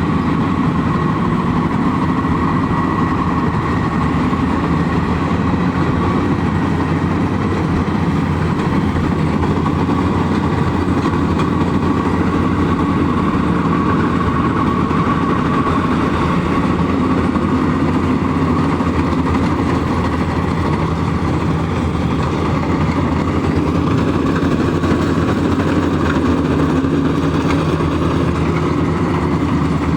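Combine harvester engine running steadily at an even pitch, with a steady higher tone over the low engine note.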